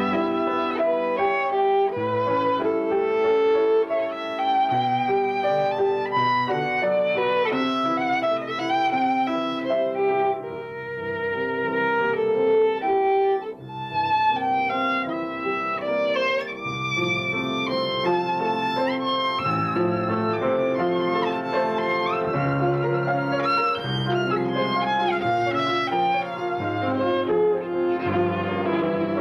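Violin bowed in a flowing melody of held and moving notes, with a brief break about thirteen seconds in.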